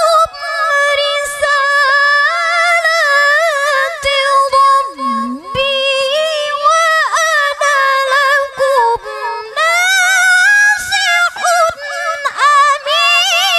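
A woman reciting the Quran in melodic tilawah style into a microphone: one high voice holding long notes decorated with quick wavering turns, with the pitch climbing near the end.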